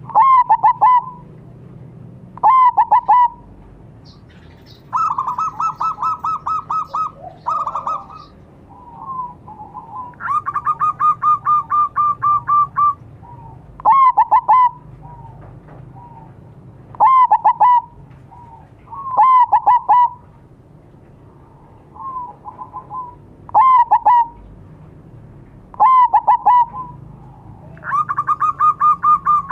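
Zebra dove (perkutut) song: short, loud phrases of quick cooing notes about a second long, repeated every few seconds, alternating with longer phrases of rapid, evenly spaced notes lasting two to three seconds, about five, ten and twenty-eight seconds in.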